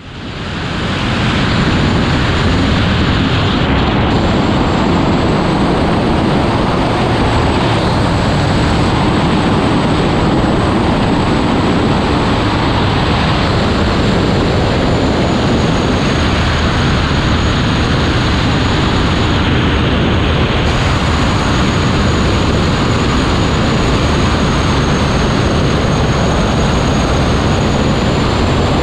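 Unlimited hydroplane's turbine engine running at racing speed, a constant heavy noise with a thin, slightly wavering high whine. Dense rush of wind and water over the hull, heard from onboard the boat. The sound fades in over the first second.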